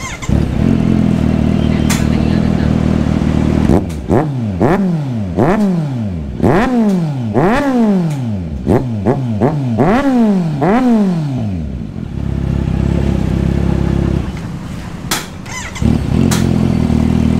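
Kawasaki Z900 inline-four motorcycle engine, breadbox deleted and breathing through an aftermarket slip-on muffler, idling loud. About four seconds in it is blipped about eight times in quick succession, each rev rising and falling in pitch, then it settles back to idle.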